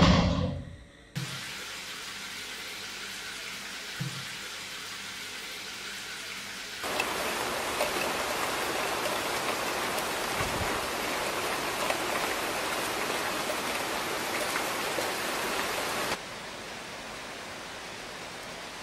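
Heavy rain falling steadily, starting suddenly about seven seconds in and cutting off about nine seconds later. Before it, a loud low boom at the very start dies away fast. A steady low hiss follows, with a dull thud a few seconds in.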